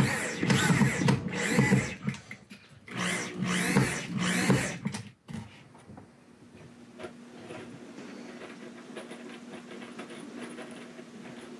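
Cordless drill running in two bursts, its motor speed rising and falling, the first about two seconds long and the second about a second and a half. After that, only a faint steady hum and a few light clicks of handling.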